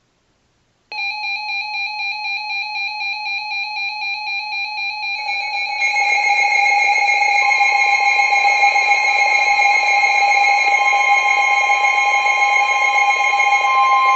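Weather radio receivers going into alert for a new severe thunderstorm warning: a pitched alarm beeping about four times a second starts about a second in, more alarm sounds join around five seconds in, and the steady NOAA Weather Radio warning alarm tone comes in about halfway and holds.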